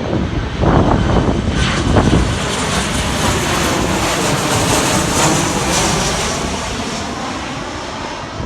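Arriving airliner passing overhead, its engine noise swelling to a peak about five seconds in and then fading, with a slowly falling tone as it goes by. Wind buffets the microphone in the first couple of seconds.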